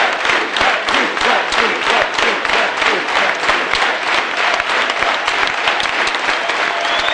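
Large crowd applauding steadily in a big hall, dense clapping with voices shouting among it.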